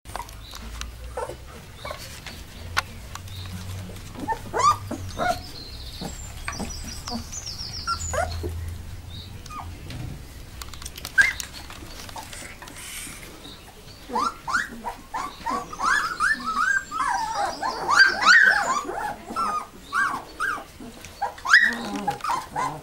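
Young Alaskan Malamute puppies whimpering with short, high cries: a few scattered ones at first, then many in quick succession from a little past halfway.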